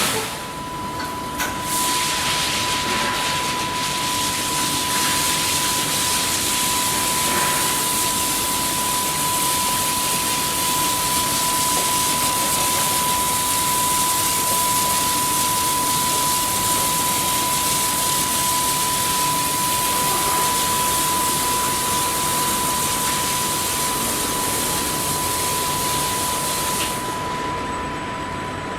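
Automatic car wash machine spraying water: a steady, loud hiss with a constant high whine underneath. The spray cuts off near the end while the whine carries on.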